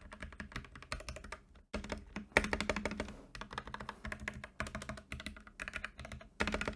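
Typing sound test on a Royal Kludge RK68 mechanical keyboard fitted with lubed Black switches: rapid runs of keystrokes clacking, with a brief pause under two seconds in and heavier strokes after it.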